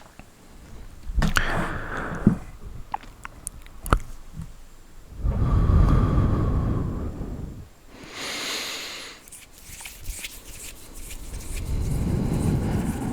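Close-miked ASMR trigger sounds: rustling and scratching against the microphone, with sharp clicks and taps in the first few seconds and a hissy swish about eight seconds in.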